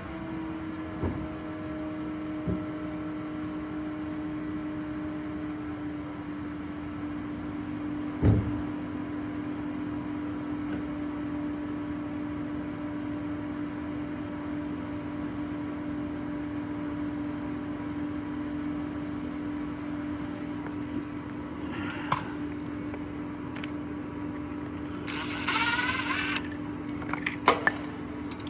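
A steady mechanical hum on one pitch. There is a single knock about eight seconds in, and a few short scrapes and squeaks near the end.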